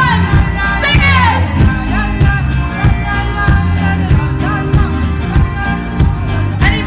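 Live band playing: electric guitar and drum kit keeping a steady beat, with a voice singing over the first second or so.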